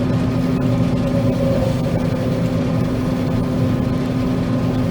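John Deere 9500 combine running steadily, heard from inside the cab: an even machine drone with a strong low hum.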